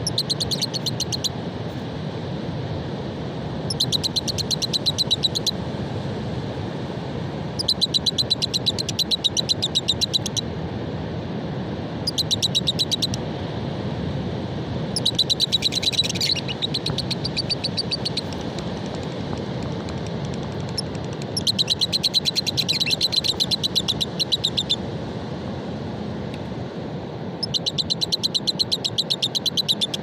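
Caged lovebirds giving bursts of rapid, chattering trills, each lasting one to three seconds, seven times, over the steady rush of surf.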